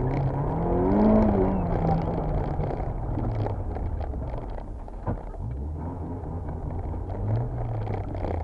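Toyota AE86's 4A-GE four-cylinder engine heard from inside the cabin. It revs up about a second in and drops back, then runs at low revs with a brief rise near the end. A short knock sounds about five seconds in.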